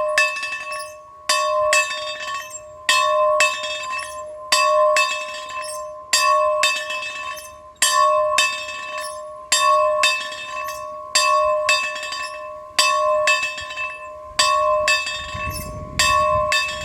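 A bell ringing in a steady rhythm. A loud strike comes about every one and a half seconds, with a lighter strike between, and each ring carries over into the next. A low rumble comes in near the end.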